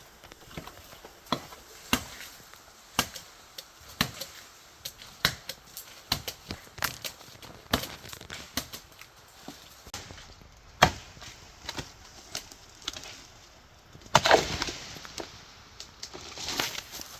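Chopping strokes on wood, sharp knocks at roughly one a second with uneven spacing. About fourteen seconds in there is a louder, longer burst of rustling noise.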